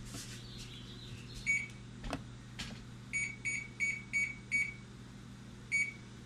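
Microwave oven keypad beeping as its buttons are pressed to set a timer: seven short, high beeps, one about a second and a half in, a quick run of five in the middle, and one more near the end. A couple of light clicks come before the run.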